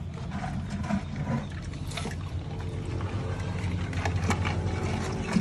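Shallow water sloshing and trickling in a plastic tub as a hand gropes along the bottom, with a few light knocks against the plastic, over a steady low hum.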